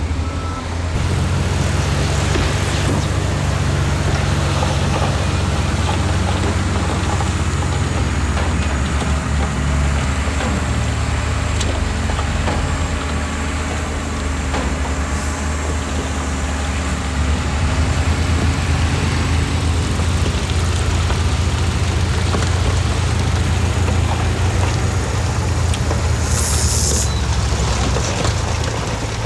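Heavy construction machinery's diesel engine running steadily with a deep rumble; its pitch steps down a little about ten seconds in. A short hiss, like an air release, comes about three seconds before the end.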